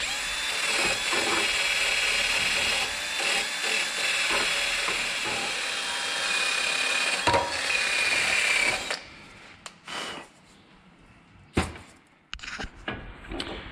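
Cordless drill spinning a wire brush against a rusty steel brake caliper carrier clamped in a vise, scrubbing off rust and old dirt. The motor whines steadily over a loud scrubbing noise, which stops about nine seconds in; a few knocks follow.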